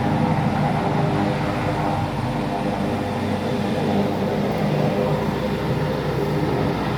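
Helicopter running steadily: a turbine whine with the rapid chop of the rotor blades, holding level.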